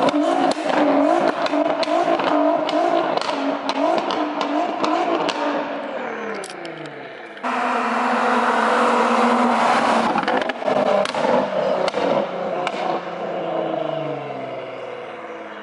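Straight-piped Nissan GT-R's twin-turbo V6 pulling away hard through the gears, its exhaust crackling and popping, the sound dropping in pitch and fading as the car gets farther off. A second loud run of the same car follows about halfway through, with crackles, dropping in pitch and fading again near the end.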